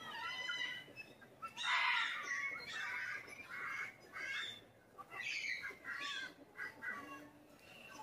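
Albino parrot giving a run of short squawks and chattering calls, about one a second, the loudest about two seconds in.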